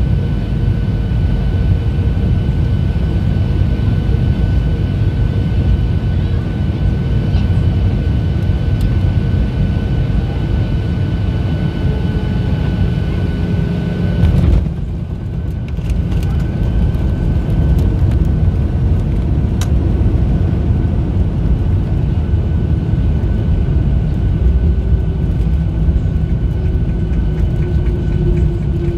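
Airliner cabin noise during landing: a steady engine and airflow rumble with a constant high whine. About halfway through there is a short jolt as the wheels touch down, and the sound changes suddenly. The rollout rumble follows, while a lower tone slowly falls as the plane slows.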